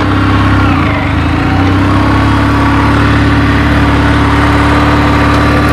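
Kawasaki W650's air-cooled parallel-twin engine running at low revs through its stock mufflers as the bike is ridden off slowly, the note rising slightly about a second and a half in and then holding steady.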